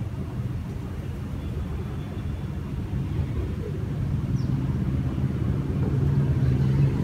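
Low engine rumble of road traffic, growing louder over the second half as a vehicle draws near.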